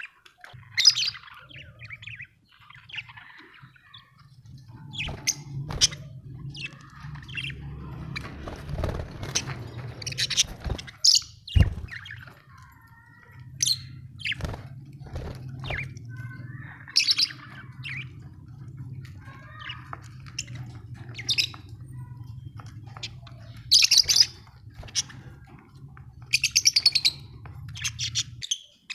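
Budgerigars chirping in many short, quick calls, with a low steady hum underneath and a single thump about twelve seconds in.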